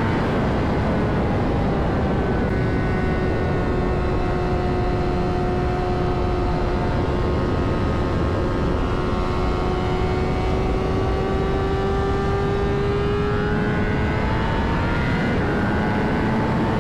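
A Honda CBR600RR's inline-four engine pulling at a steady road speed, with heavy wind rush. Its note dips slightly about a second in, holds one pitch, then slowly rises over the last several seconds.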